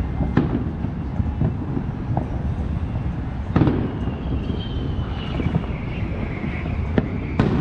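Distant fireworks going off: a few sharp bangs, the loudest about three and a half seconds in and two close together near the end, over a steady low rumble.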